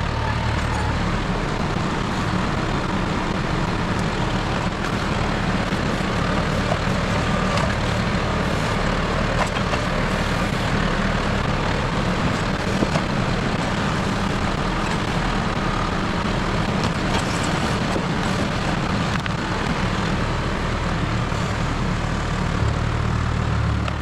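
John Deere 5075E tractor's diesel engine running steadily under work, with a heavier low rumble at the start and again near the end.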